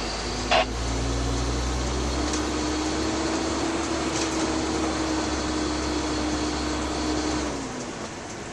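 A motor running steadily, a low rumble with a hum that creeps slightly higher, then winding down and stopping near the end. A short sharp sound comes about half a second in.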